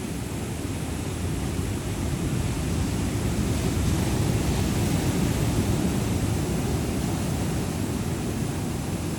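Low, steady rumble of ocean surf, swelling gently about halfway through.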